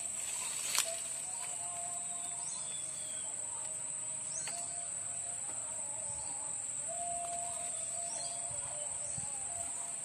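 Steady high buzz of insects in the undergrowth, with birds calling now and then in short falling chirps and a lower wavering call. A single sharp click comes just under a second in.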